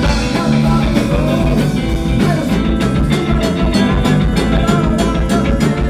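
Live rock band playing an instrumental passage between vocal lines, with bass, guitar and drums; the drumming turns busier with quicker, evenly spaced hits about two and a half seconds in.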